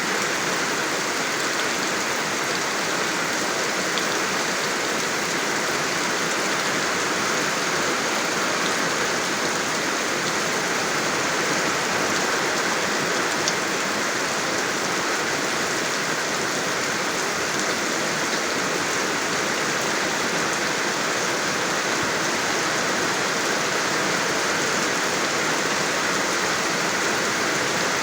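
Steady rain falling: an even, unbroken hiss of many drops that keeps the same level throughout.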